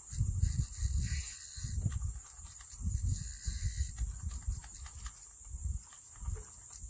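Wind buffeting the microphone in uneven low gusts, over a steady high hiss.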